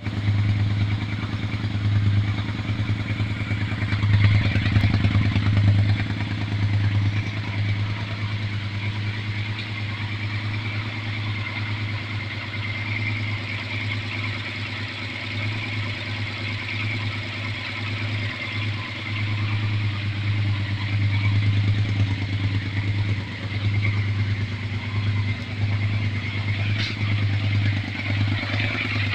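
Yamaha Super Ténéré's 1200 cc parallel-twin engine running through a Two Brothers aftermarket exhaust, a steady low exhaust note with small swells in loudness about four seconds in and again past twenty seconds.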